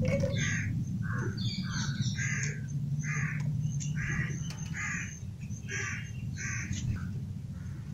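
Crows cawing repeatedly, about a dozen harsh calls spread through the stretch, over a steady low rumble.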